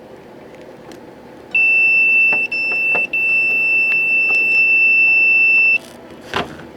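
Multimeter continuity tester giving one steady high beep for about four seconds, cut twice for an instant, as a wire is flexed between the probes. The tone means the wire has continuity.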